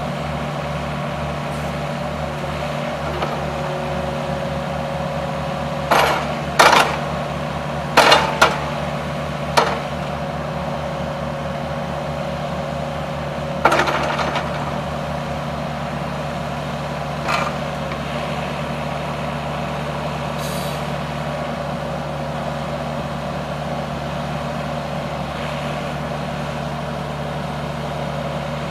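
Yanmar ViO50-6A mini excavator's diesel engine running steadily while the boom and bucket are worked. Sharp knocks come through as the front end moves: a cluster of five about six to ten seconds in, then single ones a few seconds apart.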